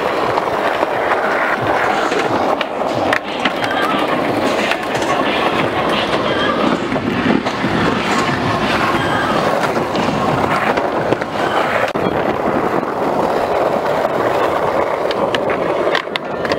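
Skateboard wheels rolling over rough asphalt, a steady rumble, with a few sharp clacks of the board now and then.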